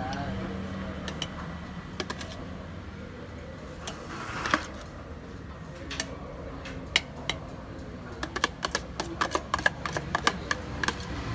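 Metal spoon clinking and tapping against a metal takoyaki pan and a plastic tub as boiled instant noodles are spooned into the pan's cups: scattered light clicks with a brief scrape about four and a half seconds in, then a quick run of clicks in the last few seconds.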